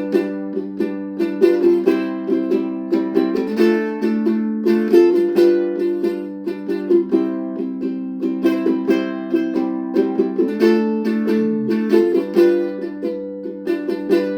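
Solo ukulele strummed in a steady rhythm, with the chords changing every second or two: an instrumental break between sung verses.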